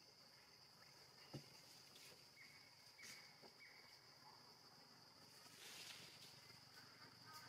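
Faint forest ambience: a steady high-pitched insect drone, with a single click just over a second in and three short chirps near the middle.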